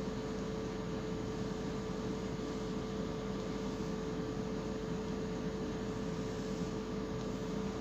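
Steady background hum and hiss with one constant mid-pitched tone, unchanging throughout.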